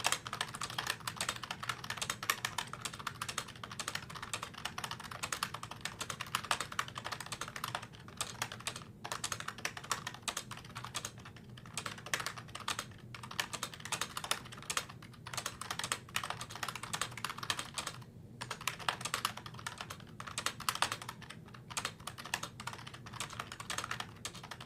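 Fast continuous typing on an IBM Model M keyboard with rubber-dome switches rather than buckling springs: a dense run of soft key clicks with a few short pauses.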